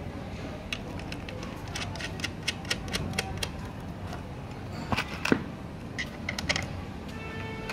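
Irregular light metallic clicks and clinks from a clutch motor's mounting bracket and bolts being handled and adjusted by hand, with a couple of louder knocks about five seconds in.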